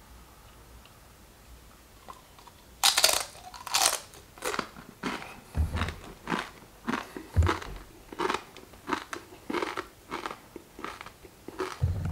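Someone biting into and chewing the Paqui One Chip Challenge chip, a crisp corn tortilla chip. After about three seconds of quiet come two loud crunches as it is bitten, then steady crunchy chewing about twice a second.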